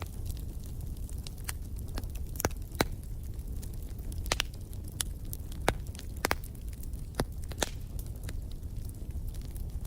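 Fireplace fire crackling over a steady low rumble of the flames, with irregular sharp pops, several louder ones in the middle.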